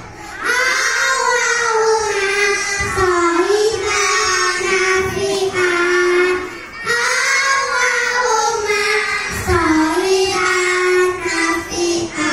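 A group of kindergarten children singing together in unison, amplified through handheld microphones, in long held phrases with a brief pause for breath about seven seconds in.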